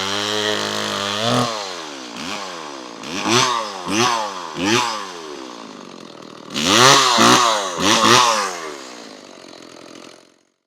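Small two-stroke engine of a Homelite Super 2 SL chainsaw, running steadily at first, then revved in a series of quick throttle blips, the pitch rising and falling each time. It dies away near the end.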